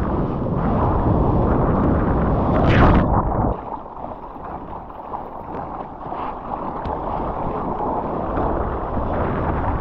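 Water rushing past a surfboard riding a small wave, with wind buffeting the board-level camera microphone. A loud splash comes about three seconds in; after that the water is quieter, with small splashes and lapping.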